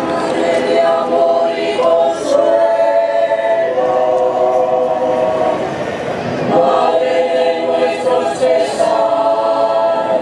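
Mixed choir singing sustained chords in phrases a few seconds long, with brief breaks between the phrases.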